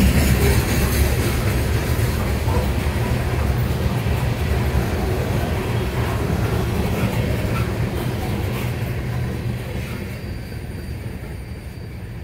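Loaded coal hopper cars of a freight train rolling past on steel wheels, a steady low rolling noise that fades in the last few seconds as the end of the train goes by.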